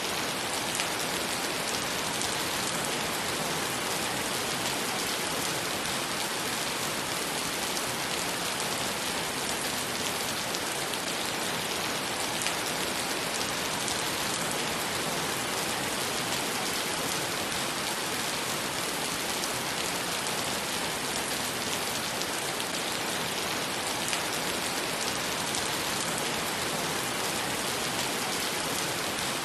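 Heavy rain falling steadily onto puddled pavement. It makes a dense, even hiss of drops splashing into standing water, with faint individual drop ticks scattered through it.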